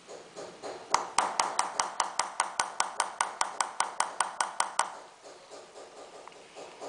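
Hammer striking a steel punch into a silver sheet bedded in pitch: about five light metallic taps a second, each with a short ring. The taps start about a second in and stop near five seconds.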